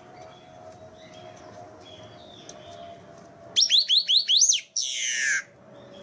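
Marshbird song: about halfway in, a loud phrase of about seven quick, bright rising notes, then one long buzzy note that falls in pitch. Faint distant bird notes and a steady low hum lie beneath.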